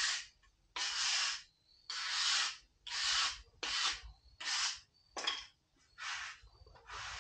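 Rough rasping rubbing strokes, one after another about once a second, each lasting about half a second.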